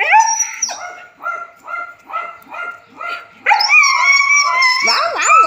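A dog whining and yipping impatiently while made to wait for its food: a run of short, quick yips, then a longer high, wavering whine from about three and a half seconds in.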